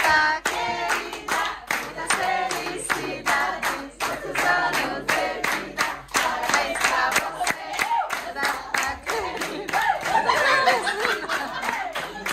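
A group of people singing together unaccompanied while clapping along in a steady rhythm.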